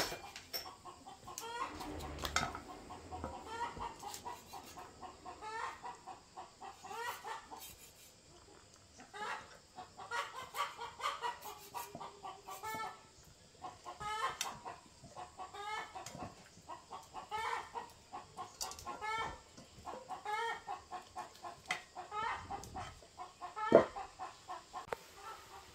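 Chickens clucking, short calls repeated in quick runs, with one sharp knock near the end.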